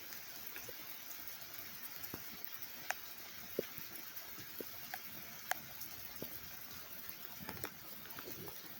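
Steady rain hiss with scattered drops ticking and pattering on nearby surfaces.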